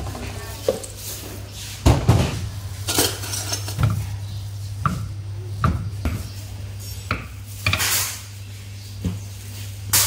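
Knife blade knocking on a round wooden chopping block as a crinkle-cut knife slices sausage: sharp, irregular knocks about a second apart, over a steady low hum.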